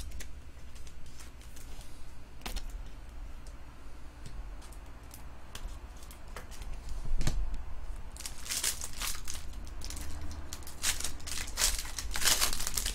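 Foil trading-card pack wrapper crinkling and tearing as it is opened by hand, a dense run of crackles in the last five seconds or so. Before it, scattered light clicks and rustles of cards and plastic sleeves being handled.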